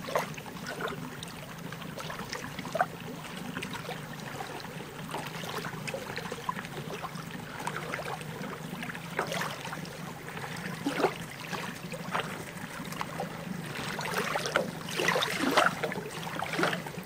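Small lake waves lapping and splashing against a sandy, rocky shore in irregular washes, heavier about two-thirds of the way in and again near the end, over a steady low hum.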